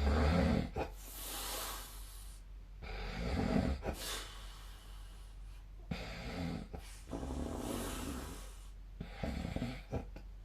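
A sleeping person snoring: rough, low snores alternating with breathy hissing breaths, a few seconds apart and not quite regular.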